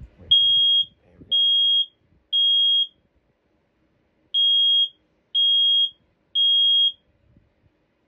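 Home smoke detector sounding its test alarm after its test button is pressed: a loud, high-pitched single-tone beep in the temporal-three evacuation pattern. Three half-second beeps come about a second apart, then a pause, then three more.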